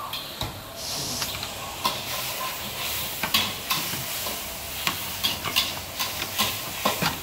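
Noodles frying in a wok over a high flame: a steady sizzle that sets in about a second in, with frequent sharp metal clanks of the spatula on the wok and plates clinking.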